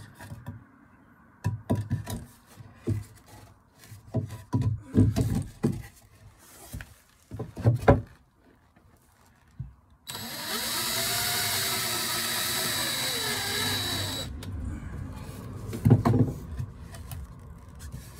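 A cordless DeWalt drill drives a hidden deck screw into redwood decking for about four seconds, starting about ten seconds in, with a high whine whose pitch dips and recovers as the screw goes in. Before it comes a string of separate knocks and bumps, and one more knock follows near the end.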